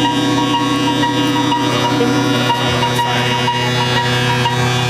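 Electronic sound art: a dense drone of many steady electronic tones, with a short blip repeating a few times a second and a wavering lower tone.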